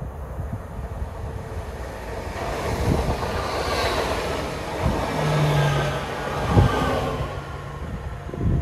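Øresund electric multiple unit passing through the station at speed: wheel and rail noise swells up, peaks as the train goes by and fades away, with a few sharp knocks from the wheels.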